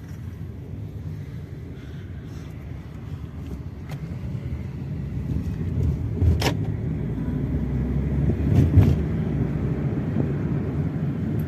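Low road and engine rumble of a moving car, heard from inside the cabin, growing louder about halfway through. Two sharp clicks cut through it near the middle.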